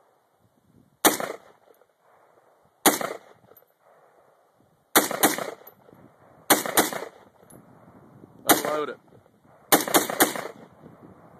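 Bushmaster AR-15 rifle fired semi-automatically, about ten shots, each a sharp crack with a short echo: two single shots, then two quick pairs, another single, and a fast string of three near the end.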